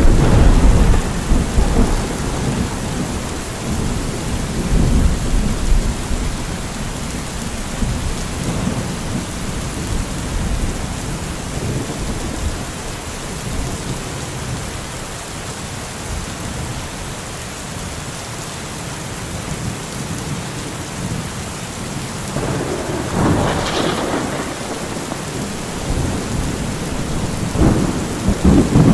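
Steady rain falling in a thunderstorm, with low rolls of thunder. One long rumble comes in the first few seconds, another builds about three quarters of the way through, and a third comes near the end.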